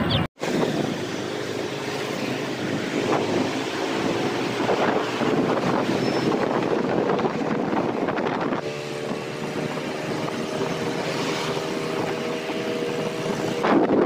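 Motorcycle engine running while riding along a road, with wind buffeting the microphone; the engine note shifts about two-thirds of the way in.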